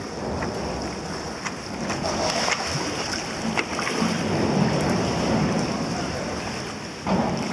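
Indoor swimming pool water lapping and splashing: a steady wash of water noise with scattered small clicks and splashes.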